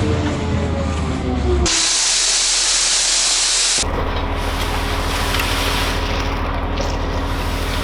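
Spliced machine sounds: an engine running with its pitch falling, cut to about two seconds of hissing spray, then cut to a steady low engine hum.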